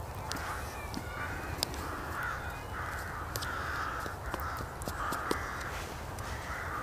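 Hoarse, cawing bird calls repeated roughly once a second in a long series, with light clicks and scrapes of a metal spoon stirring snow in a plastic bowl.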